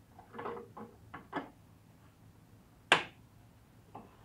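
Hand tools being handled in a shop: a few short rattles and scrapes, then one sharp clack about three seconds in, and a faint tap near the end.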